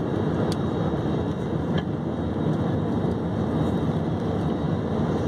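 Steady jet engine and airflow noise inside the cabin of an Airbus A320-family airliner climbing out after takeoff.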